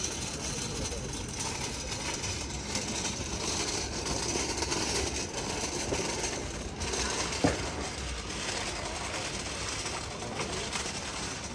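Steady background hubbub of a busy outdoor street market, with a single sharp knock about seven and a half seconds in.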